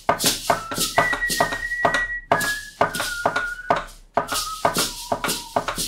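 Music: a melody of single held high notes, stepping from one pitch to the next, over a fast steady percussive beat of about three hits a second.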